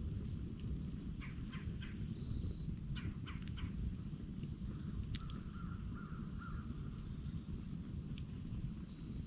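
Campfire burning with a steady low rumble and a few sharp pops and crackles. A bird calls in the background, twice in a quick series of three short calls, then once with a longer buzzy call about five seconds in.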